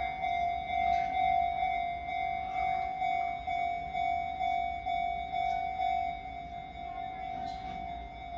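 Japanese railway level-crossing alarm ringing: an electronic bell repeating one high ding about twice a second. It warns that a train is approaching the crossing.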